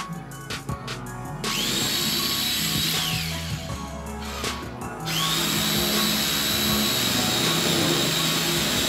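A handheld power tool spins up with a rising whine about a second and a half in, runs briefly and winds down, then starts again about five seconds in and runs steadily at a high whine. Background music plays underneath.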